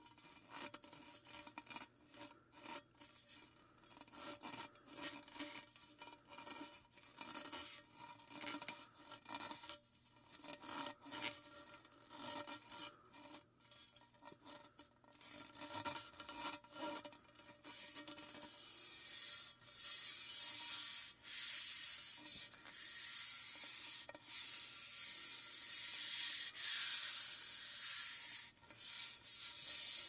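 Fuel rod handle sound effect: a long run of short rubbing, scraping clicks. About two-thirds of the way in, a steadier hiss joins and grows louder toward the end.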